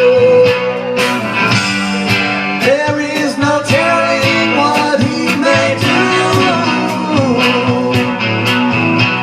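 A band playing a rock song: guitar, drums keeping a steady beat, and singing.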